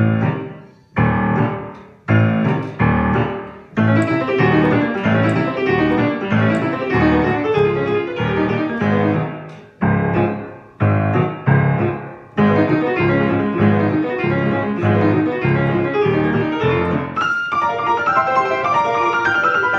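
Solo piano playing a quick march in strict rhythm: detached chords left to ring and die away, at the start and again about ten seconds in, with running lines of rapid notes over steady chords in between, shifting higher in pitch near the end.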